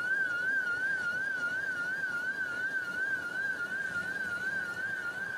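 Electronic alarm warbling rapidly, its single high tone wavering up and down about four times a second without a break, over a steady hiss of noise.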